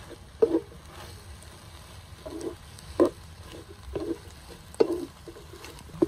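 Spatula stirring food in a pan: short irregular strokes about once a second, with a few sharper clacks among them.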